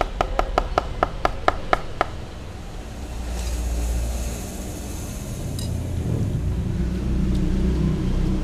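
A metal spoon tapped quickly, about five clinks a second for two seconds, knocking rice off onto a plastic bag. Then plastic sheeting rustles close by as a cat eats the rice, over a steady low rumble.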